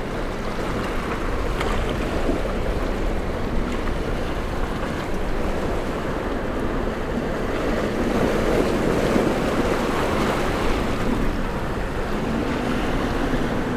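Breaking surf and wind on the microphone, with a single Yamaha 300 outboard on a Contender center-console boat running as the boat crosses the rough inlet chop. The engine's steady tone comes through more clearly near the end.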